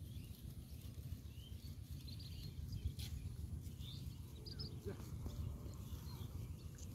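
Open-air ambience: wind rumbling on the microphone, with a few short, high bird chirps scattered through it.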